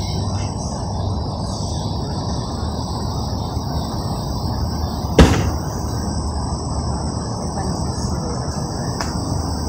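Steady chorus of insects, a continuous high-pitched hum, over a low outdoor rumble, with one sharp click about five seconds in.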